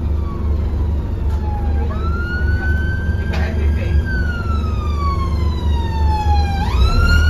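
Emergency-vehicle siren on a wail: a tone that falls slowly, then swoops back up quickly, twice. It is heard inside a moving bus over the steady low rumble of the bus's engine.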